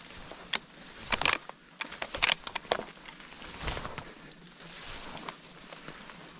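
Footsteps pushing through dry grass and brush, with stems and twigs crackling and snapping and vegetation brushing against clothing. The loudest snaps come about a second in and again about two seconds in.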